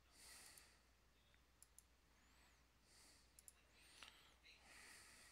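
Near silence: a few faint computer-mouse clicks and soft breaths near the microphone.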